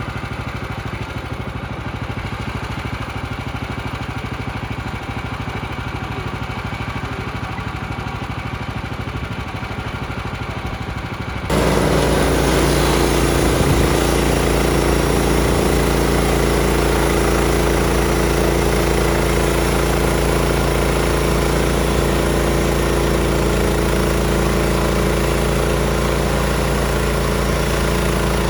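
Woodland Mills HM126 sawmill's small gasoline engine idling steadily. About eleven seconds in it suddenly gets louder, with a dense rushing noise on top of the engine note, and keeps running at that level.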